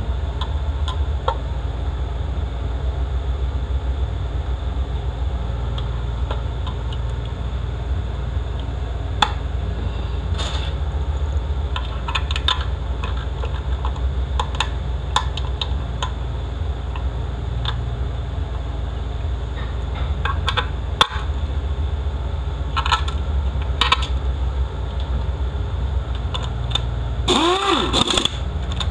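Scattered light clicks and knocks of metal transmission parts being handled and fitted, denser near the end with a short squeak. A steady low hum runs underneath.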